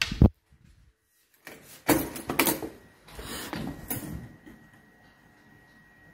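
A sharp knock right at the start, then after a second of quiet a couple of seconds of clattering knocks and rustling, like a door or objects being handled.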